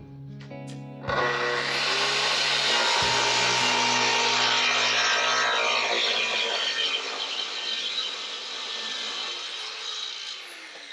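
A power tool starts with a low hum, then cuts into wood with a loud, even rasping noise that lasts several seconds and eases off toward the end.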